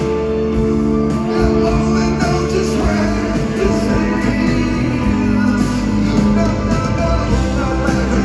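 A Britpop band playing live in an arena: electric guitar and drums under steady held chords, with a sung vocal line at times.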